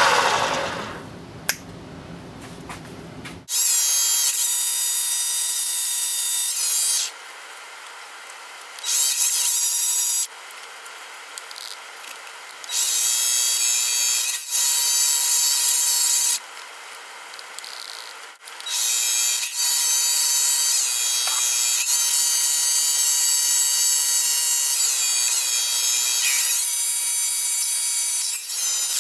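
Mini lathe cutting an aluminium disc with a carbide tool: four long cutting passes, each a loud, high-pitched squeal that wavers in pitch, with quieter gaps between them. A steady faint motor whine runs underneath.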